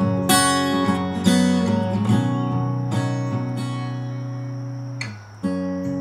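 Background music on acoustic guitar: chords strummed about once a second, then one chord left ringing and fading for about two seconds, a brief break just after five seconds, and a new chord near the end.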